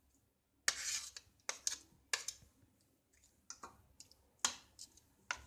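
A kitchen utensil clicking and scraping against a bowl in a string of irregular sharp strokes, while ginger-garlic paste is worked onto raw chicken to marinate it.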